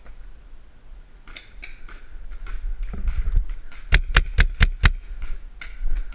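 A paintball marker fires a rapid string of five sharp shots about four seconds in. Fainter scattered pops come before and after.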